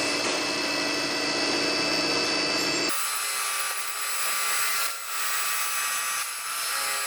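Milling cutter on a jig-boring machine facing a camshaft bearing cap blank to thickness: steady cutting noise with several whining tones from the spindle and cutter. About three seconds in the sound changes abruptly, with its low end dropping away, then stays steady.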